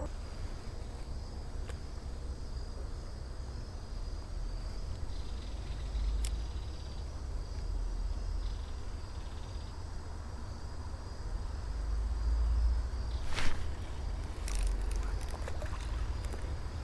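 Outdoor creekside ambience: a steady high insect chirring over a low rumble, with a few sharp knocks or handling sounds in the last few seconds.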